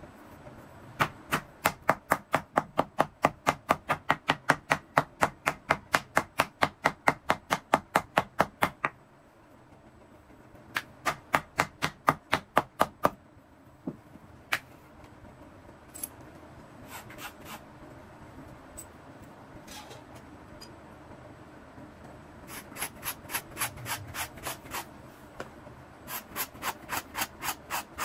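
Wooden mallet pounding a leather insole on a stone slab: steady blows about four a second for several seconds, then a shorter run after a pause and a few single knocks. Near the end, quieter quick scraping strokes of a knife trimming the leather insole's edge.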